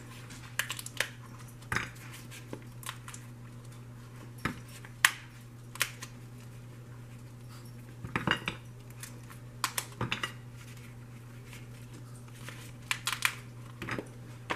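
Hardened chocolate candies being pushed out of a flexible silicone mold and dropping onto a ceramic plate: scattered sharp clicks and clatters, some in quick clusters, over a low steady hum.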